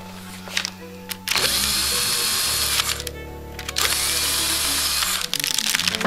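Electric drill running in two bursts of about a second and a half each, with a short pause between, boring holes to wire a wooden block onto a sheet of plastic beehive foundation. Background music plays underneath.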